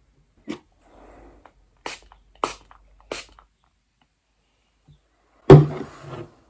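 Things being handled on a desk: four light clicks and taps with a little rustling, then, near the end, one much louder knock with a short low ring as it dies away.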